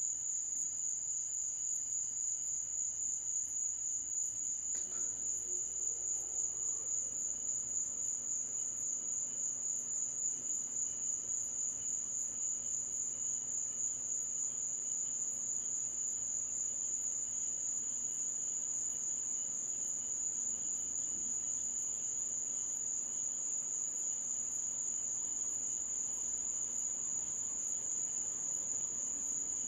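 Chorus of insects trilling steadily in one continuous high-pitched drone.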